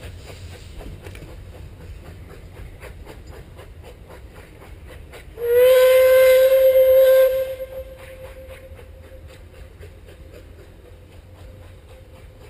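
Puffing Billy's NA-class 2-6-2T steam locomotive 6A sounding its whistle: one blast of about two seconds, about halfway through, sliding up to pitch as it opens and then trailing off. Under it, the train running away gives a quieter, steady rhythmic beat.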